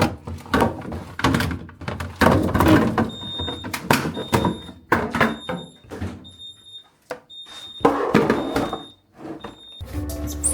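A run of household knocks and thumps, like things being handled and set down, with a short high electronic beep sounding on and off again and again from about three seconds in until near the end.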